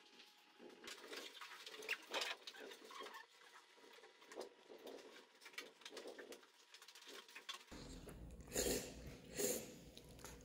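Faint scratching of a pen writing on notebook paper, with small paper rustles. About eight seconds in it cuts to a louder room with a low hum and a few louder knocks and rustles of chopsticks and a plastic takeaway bowl.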